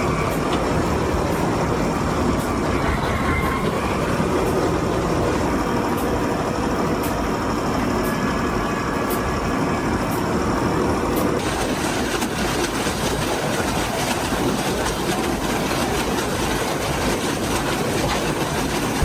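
Large truck-mounted wood chipper running, a steady heavy engine noise with faint sharp ticks, changing character about eleven seconds in.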